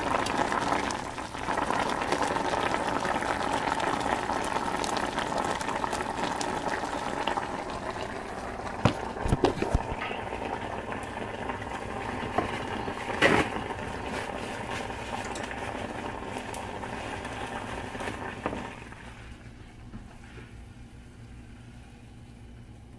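Pot of chicken in broth boiling hard on an electric stove, a steady bubbling that dies down a few seconds before the end. Two sharp knocks break in around the middle.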